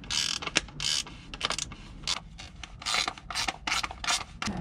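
Plastic headlight housing creaking and scraping as its adjuster's ball-joint pivot is worked loose by hand: a string of short, irregular scrapes and clicks.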